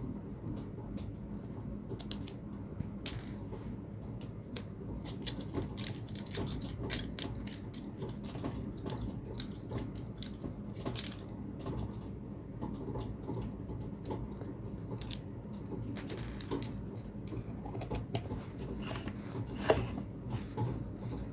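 Small metal parts and tools clinking and tapping against each other as a submersible pond pump is taken apart by hand, irregular sharp clicks over a steady low background noise.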